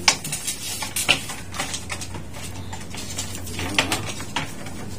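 Light clicks and knocks of a Condura inverter air-conditioner control board in its plastic housing being handled, with its wires and connectors rattling, over a faint steady low hum.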